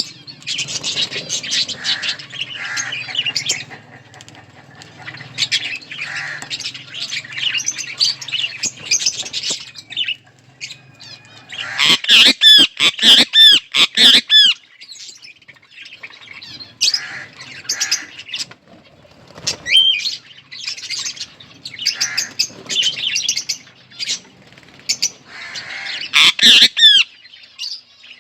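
Several budgerigars chirping and chattering, with loud bursts of squawking around the middle and again near the end.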